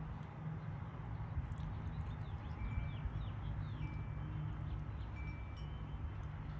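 Wind chimes ringing now and then with single clear held notes, and birds chirping in short falling notes from about a second and a half to four seconds in, over a low steady rumble.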